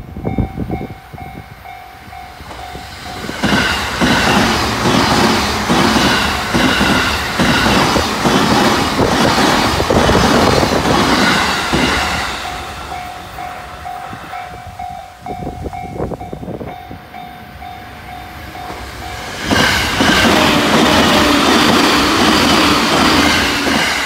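A level-crossing warning bell rings with a steady, evenly pulsing tone while two electric commuter trains pass close by, one after the other. Each pass is a loud rush of wheels and clickety-clack over the rails that drowns out the bell. The first train goes by from a few seconds in to about halfway through, and the second begins near the end, with the bell heard alone in between.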